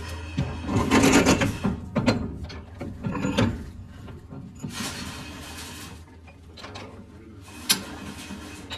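Metalworking lathe running with a steady low hum under a series of metal clanks and rattles. A scraping stretch comes about five seconds in, and a single sharp click near the end.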